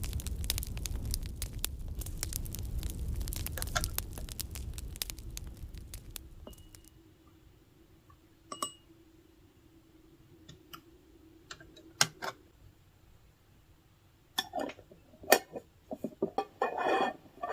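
Crackling fireplace sound with a low rumble, fading out about six seconds in. After that, a few scattered clicks and glassy clinks that come closer together near the end.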